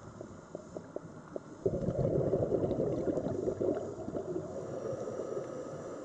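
Underwater sound of a scuba diver's exhaled air bubbles gurgling, starting suddenly about two seconds in and slowly fading. Scattered faint clicks come before it.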